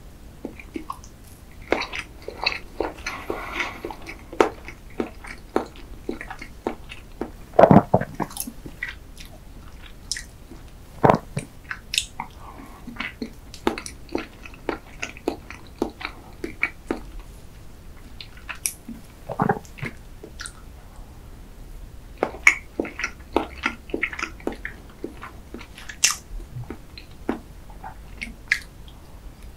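Close-miked chewing of soft chocolate-glazed layer cake: wet mouth smacks and sharp clicks in an irregular run, with a few louder strokes.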